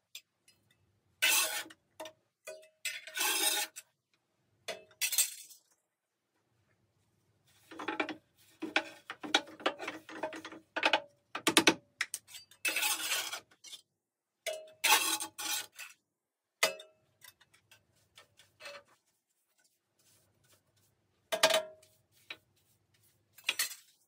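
Metal scraping and clinking as ash is raked and scooped out of a wood-burning stove's ash collection box, in irregular bursts with short pauses and a busy run of clatter in the middle.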